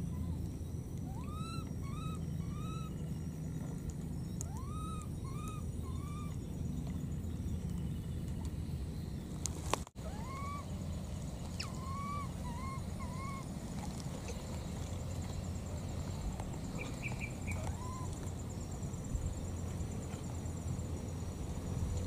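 A baby monkey calling: short arched coos in runs of three or four, repeated several times, over a steady low background rumble.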